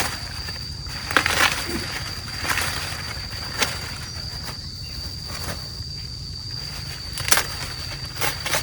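Dry corn plants rustling with several sharp snaps, as ears are picked by hand, over a steady high-pitched insect drone.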